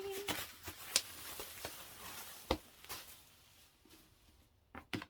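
Rustling of packaging being handled, with a few light taps and clicks; the rustle fades away over the second half.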